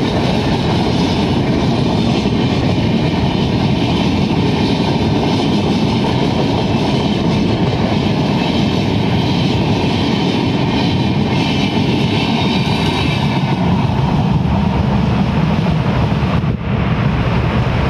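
Passenger coaches of an Indian Railways Humsafar Express rolling past at speed over a concrete rail bridge: a loud, steady rumble of wheels on the rails with some clickety-clack. It dips briefly near the end.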